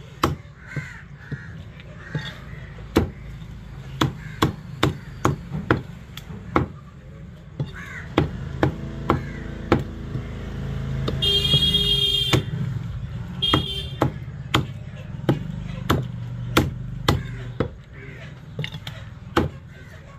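Repeated chopping, two to three sharp chops a second, with a short break about halfway. A crow caws twice midway through, over a low steady hum.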